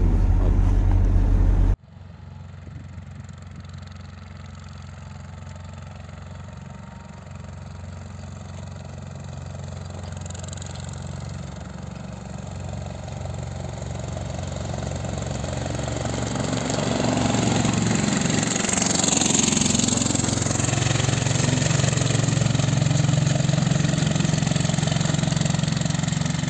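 A low engine rumble inside a vehicle cuts off abruptly just under two seconds in. Then a heavy diesel snowplow truck, with a plow blade on the front, runs along a wet road with tyre hiss. It grows steadily louder and passes close about two-thirds of the way through, and heavy engine rumble carries on to the end.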